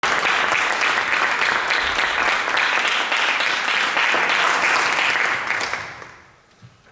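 Audience applauding, the clapping dying away about six seconds in.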